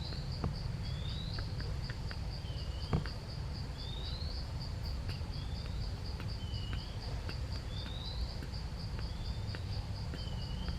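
Forest insects trilling in a steady high pulse, about three beats a second, with short rising chirps repeating every second or two, over a constant low rumble. A single sharp knock about three seconds in.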